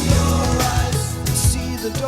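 Pop-rock song with a sung vocal, guitar and drums.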